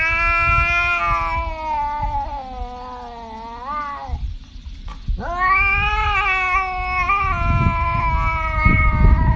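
Tabby cat yowling in two long, drawn-out calls with a pause of about a second between them. The first call slides down in pitch.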